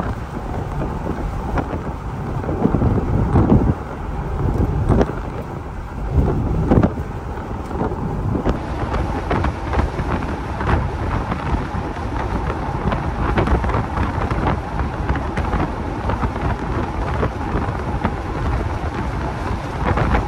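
Wind rushing and buffeting the microphone in an open-top convertible at highway speed, with road noise and rain underneath. It comes in uneven gusts that are strongest in the first several seconds.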